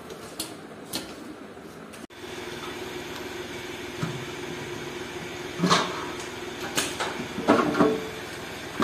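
Metal parts being handled during an engine teardown: scattered clanks and knocks, louder and more frequent in the second half, over a steady hum.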